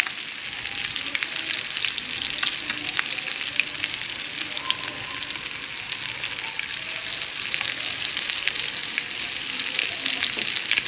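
Crumb-coated potato snacks shallow-frying in hot oil in a pan: a steady sizzle thick with fine crackling.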